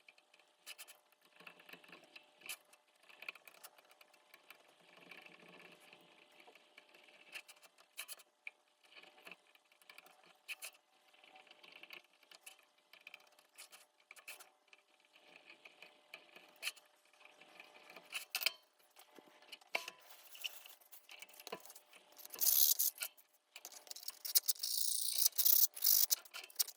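Small clicks and light scrapes of handwork on wood, then, about twenty-two seconds in, sandpaper rubbing back and forth over a wooden marquetry panel in two loud spells.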